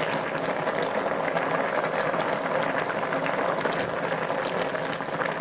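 Chicken, potato and water simmering in an electric wok with the lid off, a steady bubbling full of small pops and crackles.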